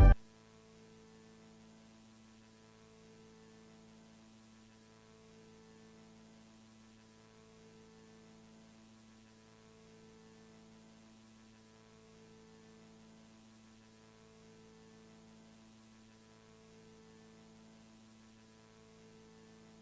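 Faint electrical mains hum in dead air: a few steady low tones, some swelling and fading about every two seconds. Loud music cuts off right at the start.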